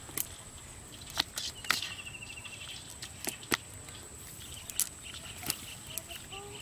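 Scattered sharp taps and clicks as small fish are worked loose from a cast net's mesh and dropped on grass, with a rapid high chirping trill in the background around two seconds in and more faintly later.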